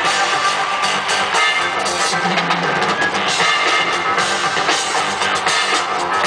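Loud electronic dance music with a driving drum-kit beat and sustained synth tones, played over an arena sound system during a concert's video interlude.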